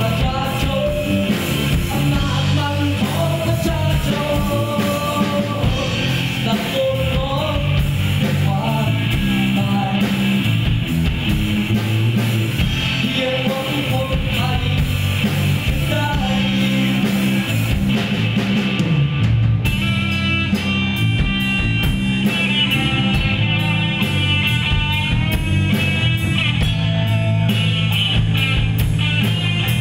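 A live rock band playing, with a male singer over electric guitar, bass, drums and violin. About two-thirds of the way through the singing stops and the band carries on with an instrumental passage.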